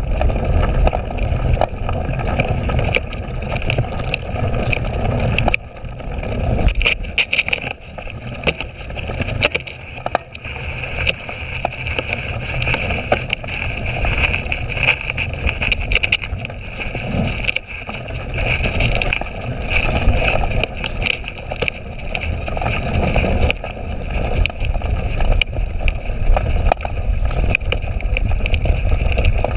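A cyclocross bike ridden over bumpy, muddy grass, heard from a handlebar-mounted camera: a steady low rumble of wind and ground noise on the microphone, with frequent clicks and rattles as the bike jolts over rough ground.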